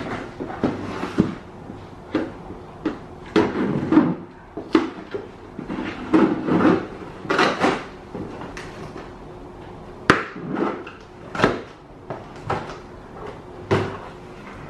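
Cardboard shipping box being cut and opened with scissors: irregular scraping and rustling of cardboard and packing tape, with a few sharp knocks, the sharpest about ten seconds in.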